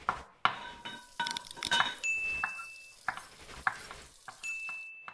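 Logo sting built from kitchen sound effects: a quick run of sharp clinks and knocks like cutlery and dishes, with a high steady beep held for about a second, twice.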